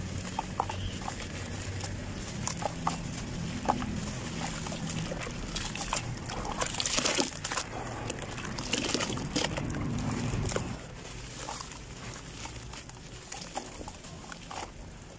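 Clumps of sand-cement being crushed and crumbled, making scattered crackles and crunches, with a louder crumbling burst about seven seconds in.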